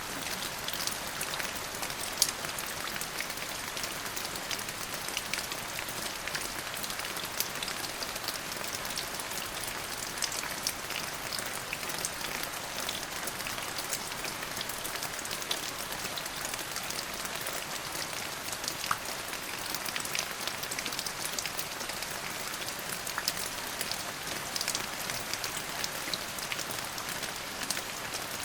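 Steady rain falling on a hard surface, a constant hiss dotted with many sharp drop ticks.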